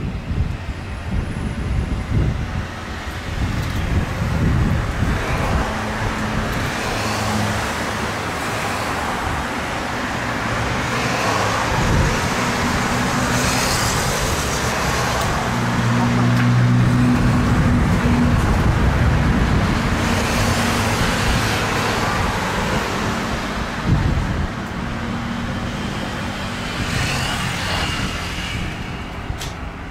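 Four-engine Airbus A340 taxiing on idle thrust: a steady jet rumble and hiss with a low hum, swelling somewhat about halfway through and then easing off.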